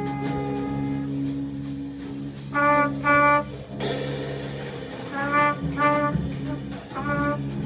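Live free jazz: a trumpet plays short, clipped groups of notes over a steady low drone of held tones from a double bass played with a bow, with clarinet and drum kit. A single cymbal or drum strike lands about four seconds in.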